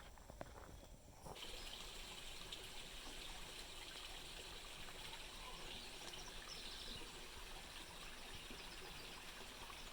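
Faint, steady trickle of a small stream, starting abruptly about a second in.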